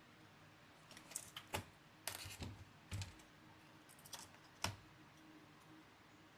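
A scattered run of light clicks and taps from hands handling laptop parts, with a short rattle about two seconds in and a sharper click near the end.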